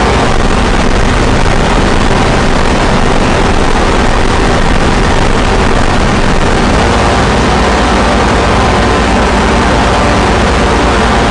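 Loud harsh-noise drone music: a dense, unbroken wall of distorted noise over a steady low droning hum, without beat or pause.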